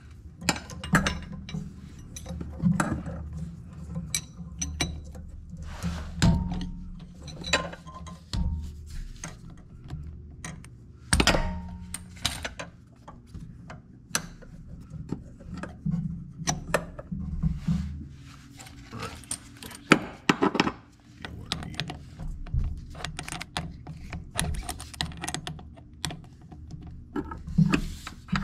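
Hand ratchet working the bolts on a driveshaft flange: irregular ratchet clicks with metal clinks and knocks of the tool and bolts, over a low steady hum.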